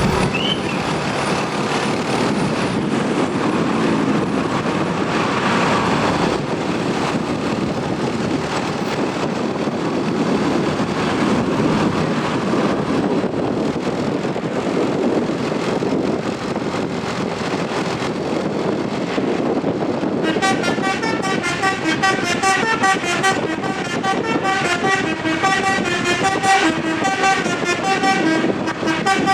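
Steady vehicle and road noise, then about twenty seconds in a Basuri telolet horn on a tour bus starts playing, a quick tune of many short pitched horn notes repeating over and over.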